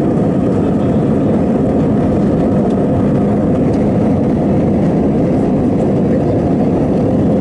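Jet airliner's engines at takeoff power heard from inside the cabin: a steady, loud low rumble that holds an even level through liftoff and the first climb.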